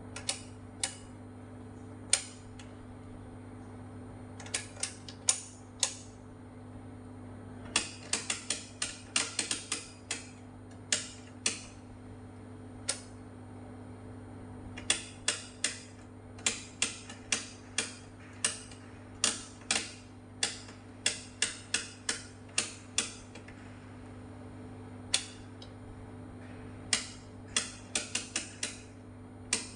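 Rotary switch knobs on an analogue oscilloscope being turned, clicking through their detents: single clicks and quick irregular runs of several, over a steady low hum.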